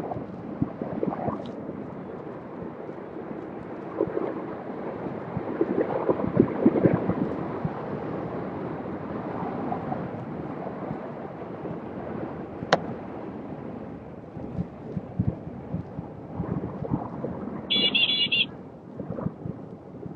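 Wind buffeting the microphone of a phone held by a rider on a moving electric unicycle, gusting unevenly. There is a single sharp click partway through and a brief high electronic beep near the end.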